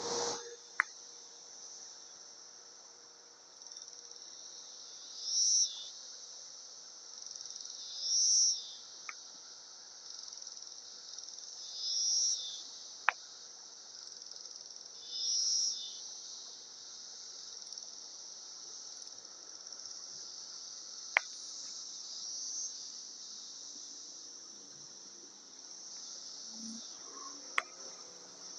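A chorus of cicadas buzzing in a steady high drone, swelling louder about every three to four seconds four times in the first half. A few sharp, isolated clicks sound over it.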